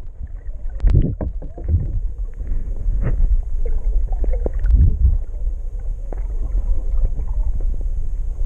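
Muffled underwater water noise picked up by an action camera's microphone below the surface: a dense low rumble of water moving around the camera, with a few dull knocks near one, three and five seconds in.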